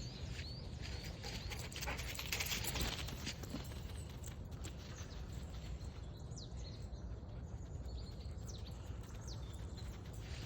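Birds calling outdoors, with short falling chirps that come mostly in the second half, over a steady low rumble and scattered rustling and clicks.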